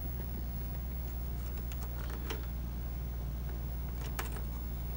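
A few light clicks and taps from handling the front door of an opened Atari 810 floppy drive, two around the middle and two near the end, over a steady low hum.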